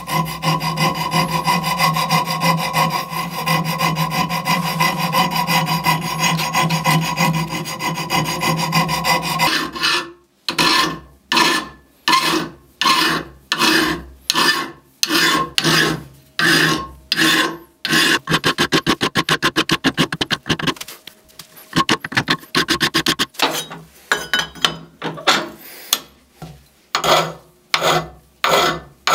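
Hand file rasping on a steel meat-cleaver blank, shaping the tang shoulder and edge. It is a continuous rasp for about the first ten seconds, then separate push strokes about one and a half a second, broken by a pause of a few seconds past the middle before the strokes resume.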